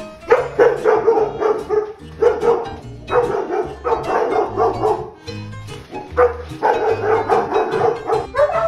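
Several German Shepherds barking in rapid volleys with short pauses, over background music with a steady bass line.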